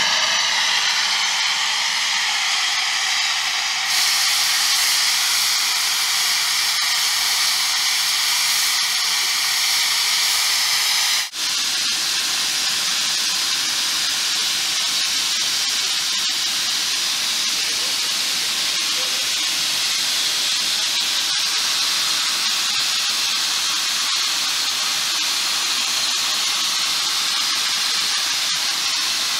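Steam from a 1914 Stanley steam car's boiler venting through a valve at the front of the car: a loud, steady hiss. It swells a little about four seconds in and breaks off for an instant about eleven seconds in, then carries on unchanged.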